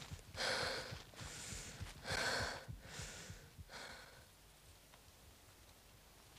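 A woman breathing hard in a run of about five heavy, breathy breaths in and out. The breaths fade after about four seconds.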